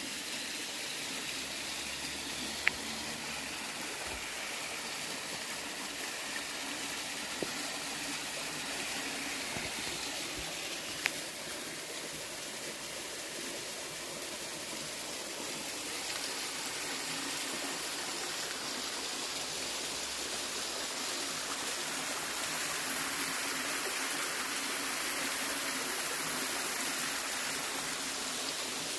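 Stream water flowing steadily, a little louder in the second half, with a few sharp clicks, the loudest about 3 and 11 seconds in.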